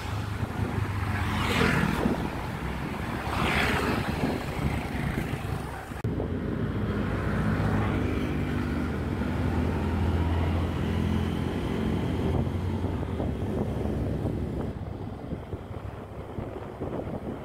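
Heavy truck engine running steadily under way, heard from on board, with wind rushing over the microphone; two louder gusts of wind come in the first few seconds.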